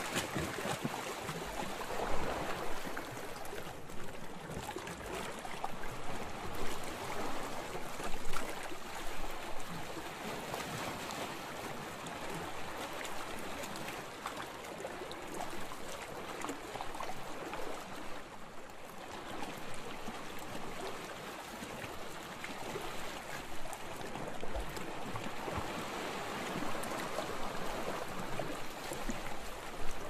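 Ocean waves: a continuous wash of moving water, swelling in small louder surges every few seconds.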